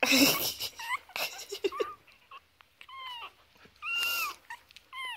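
Three-week-old chihuahua puppies squeaking and whining: several short, high-pitched cries that rise and fall, the longest about four seconds in. A brief scuffling noise comes right at the start.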